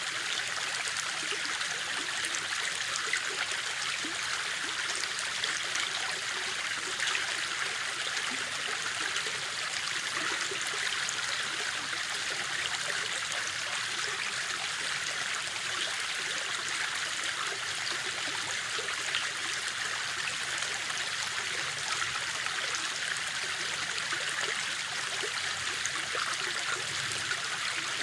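A river stream flowing steadily over rocks: an even, high-pitched rush of running water with small scattered splashes.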